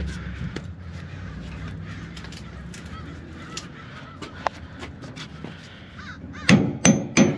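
A crow cawing loudly three times in quick succession near the end. Before that, a low steady hum fades out over the first couple of seconds.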